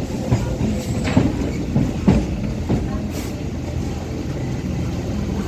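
Rajdhani Express train running on the track: a steady low rumble with several sharp knocks in the first three seconds.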